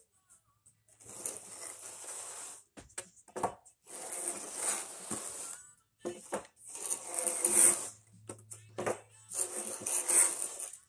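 Wooden screed board dragged across a bed of paver sand, levelling it: four long scraping strokes of one to two seconds each, with a few short knocks between them.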